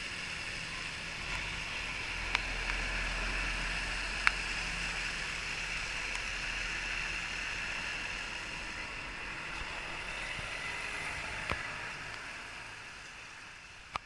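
Heavy trucks, a MAN tanker and then a Volvo FH, rolling slowly past on a wet road: a steady hiss of tyres on wet tarmac over a low diesel rumble, with a few sharp clicks. The sound fades out near the end.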